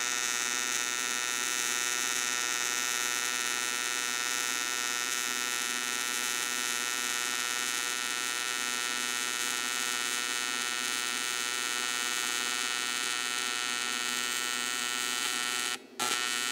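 AC TIG welding arc on aluminum, a steady high-pitched buzz that holds constant, dropping out for a split second about a second before the end.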